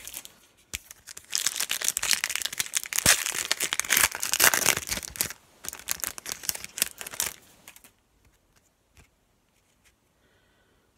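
Foil wrapper of a 2018-19 Panini Prizm basketball card pack being torn open and crinkled: a dense run of tearing and crackling for about six seconds. Then only a few faint ticks as the cards are handled.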